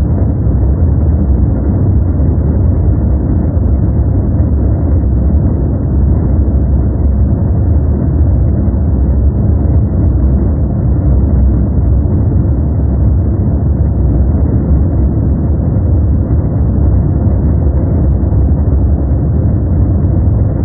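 Steady, unchanging deep rumbling noise from a 'white noise' sleep track, heavy in the bass and muffled, with nothing high at all.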